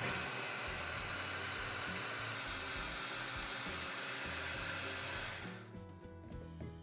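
Electric food chopper (hand-blender chopper bowl) running at full speed, chopping apple chunks to a coarse mush. The motor noise starts suddenly and cuts off about five and a half seconds in.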